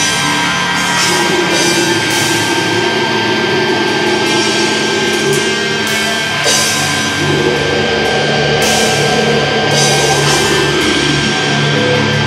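Black metal song: distorted electric guitars and a drum kit, with cymbal crashes every second or two.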